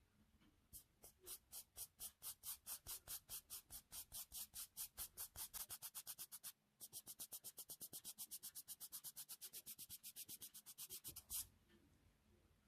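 Hand nail file rubbing back and forth across a fingernail in quick, even strokes, about five a second, with a short break just past the middle; the strokes stop about a second before the end.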